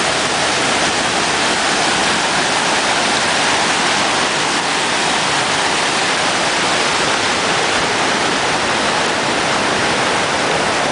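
Waterfall: a loud, steady rush of falling water, close to the microphone.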